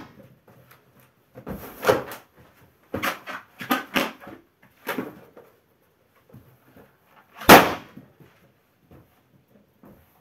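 Several softer thuds and knocks of bare feet pressing and stomping latex balloons, then one loud sharp pop of a balloon bursting underfoot about seven and a half seconds in.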